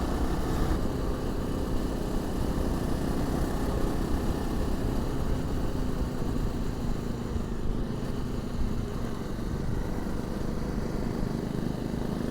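A 250cc motorcycle running at a steady road pace, heard from a lavalier mic inside the rider's crash helmet, so the engine comes through as a steady low rumble with riding noise.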